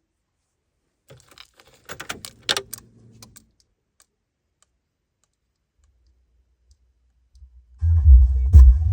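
A quick run of clicks and knocks, like handling or button presses, in the first few seconds. Near the end, loud electronic music with heavy deep bass starts suddenly, played through the Mekede OD8 car radio.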